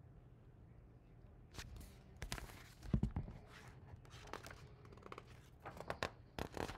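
Pages of a large picture book being handled and turned: a run of papery rustles and soft knocks starting about a second and a half in, loudest about three seconds in.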